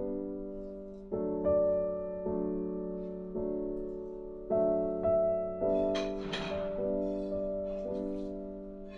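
Instrumental piano background music, slow chords struck every second or so and left to ring. About six seconds in there is a short rustling noise.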